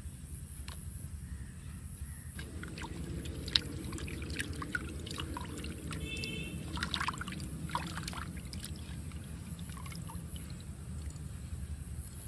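Water splashing and dripping in a small clay pot as pieces of catfish are rinsed by hand, in a run of short splashes from a few seconds in, over a steady low rumble.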